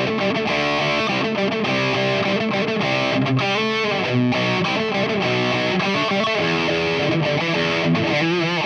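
Ibanez electric guitar played with heavy distortion through a Valeton multi-effects preset: a continuous rock riff with changing notes.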